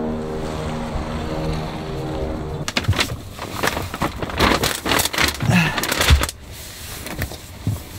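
Background music with held, sustained notes that stops about two and a half seconds in, followed by a run of irregular clicks, knocks and handling noises with one heavy low thump about six seconds in.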